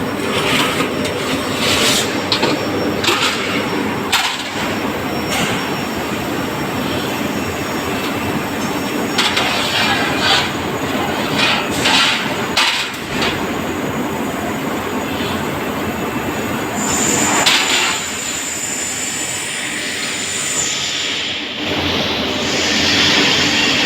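Press brake bending a steel sheet: steady workshop machine noise with a series of clanks and knocks as the sheet is worked, and a high steady whine for about three seconds later on.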